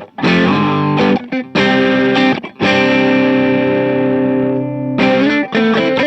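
Electric guitar played through a pedalboard with distortion: short chords broken by brief gaps, then one chord held ringing for about two seconds before faster playing starts again near the end.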